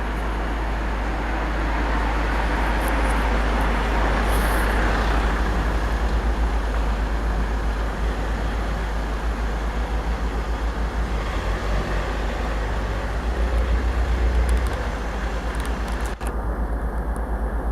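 Road traffic noise: a steady wash of passing vehicles, swelling about four seconds in and again near the end, over a constant low rumble. A single sharp click sounds near the end.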